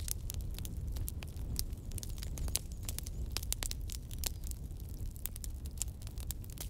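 Wood fire burning, with frequent irregular sharp crackles and pops over a steady low rumble.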